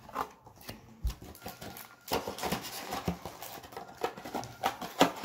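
Crinkling and tapping as Pokémon booster pack wrappers and trading cards are handled: scattered sharp taps, a denser stretch of crinkling from about two seconds in, and the loudest tap near the end.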